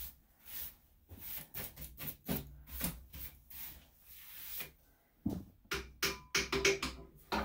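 A stiff hand scrub brush swept back and forth over the floor of a tiled grooming tub, one scraping stroke about every half second or so. Near the end come faster, sharper knocks and clatters.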